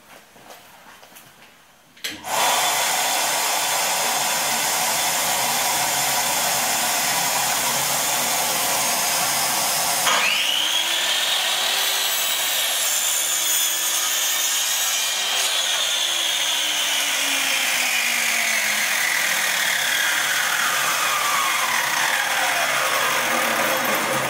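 Compound miter saw cutting mahogany at 45 degrees: the motor whines up about ten seconds in, the blade goes through the wood, then the whine falls away as the blade spins down over the last several seconds. A loud, steady rushing machine noise starts about two seconds in and runs under it throughout.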